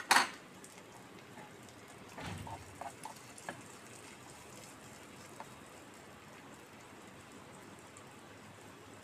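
Miniature cookware being handled: a sharp clack just after the start, then a soft thump and a few light clicks and taps from a small utensil against tiny pots, over a steady faint hiss.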